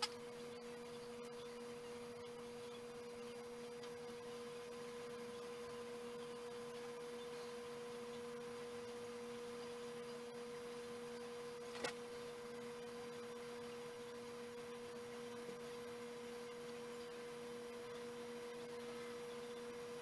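Desktop computer running: a steady whine with a fainter hum an octave below, over faint hiss, and a single short click about twelve seconds in.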